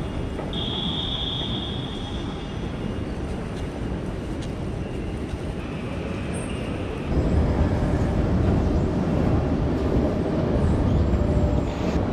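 Ambient noise of a large railway station concourse: a steady hum and rumble that grows louder about seven seconds in.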